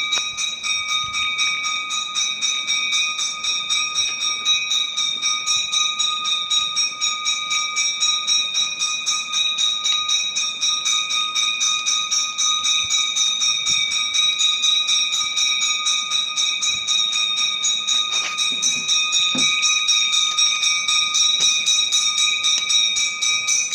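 Continuous rapid jingling, like small bells shaken without pause, holding the same high ringing pitches throughout. A couple of faint knocks come near the end.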